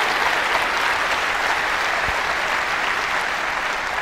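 Large audience applauding steadily, the clapping easing slightly near the end.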